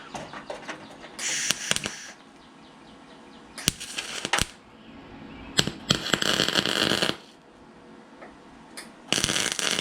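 Gas-shielded wire-feed (MIG) welder laying four short tack welds on sheet-metal fender patch, each a burst of harsh arc crackle lasting about a second. It sounds awful because the shielding gas was left shut off.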